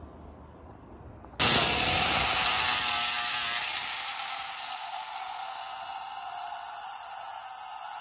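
Power tool cutting into the fiberglass top of a boat transom: a steady, harsh, high-pitched whir that starts abruptly about a second and a half in.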